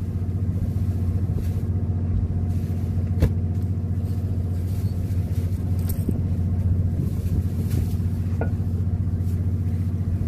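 Fishing boat's engine running steadily with a low hum. A single sharp click about three seconds in.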